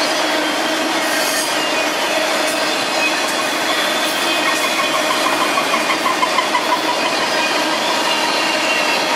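Freight cars rolling past at speed, autoracks giving way to covered hoppers: a steady rush of steel wheels on rail with several sustained high tones. About halfway through comes a short run of rhythmic clicks, roughly four or five a second, as wheelsets pass over a rail joint.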